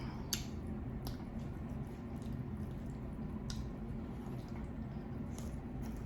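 Wet mouth sounds of someone eating seafood boil: chewing with a few sharp lip smacks spaced out over a steady low background hum.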